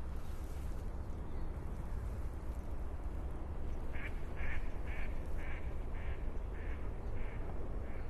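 A duck quacking a series of about eight quacks, roughly two a second, growing fainter toward the end. Under it is a steady low rumble of outdoor background.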